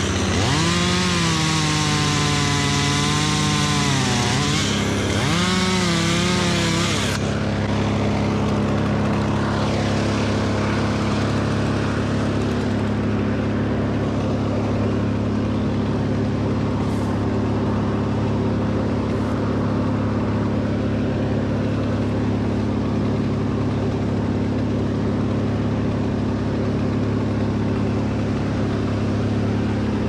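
A Stihl top-handle chainsaw revving up and down in short blips over a steady engine drone. About seven seconds in the revving stops and the steady drone carries on alone.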